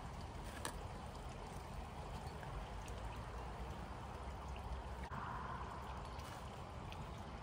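Steady trickle of running water, with a sharp click about a second in and a few faint ticks as a long-handled edging tool is worked into turf.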